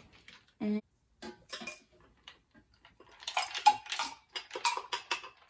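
A spoon clinking and scraping in a pitcher of iced drink, then, about three seconds in, a dense run of ice clinks and splashes as the drink is poured from the pitcher into a glass.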